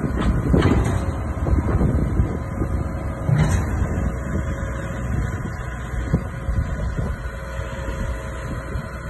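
Vertical feed mixer wagon running under tractor power, its auger churning and tearing into a round hay bale just dropped into the tub. Heavy crunching and thumping in the first second or so eases into a steady machine rumble with a droning hum.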